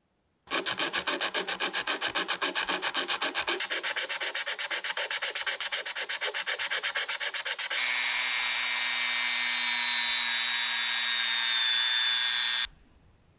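A small metal washer rubbed back and forth by hand on sandpaper in quick, even scraping strokes, several a second. About halfway through, a handheld rotary tool runs steadily with a whine as its small wheel works the washer, cutting off suddenly near the end.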